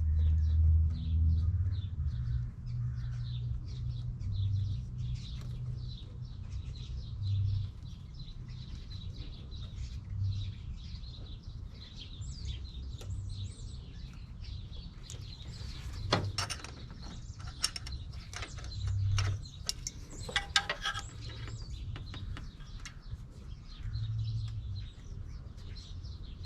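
Hand ratchet clicking in short runs as it turns down the thermostat housing bolts on an Oldsmobile 350 V8, with a louder, denser run of clicks a little past halfway, over a steady low rumble.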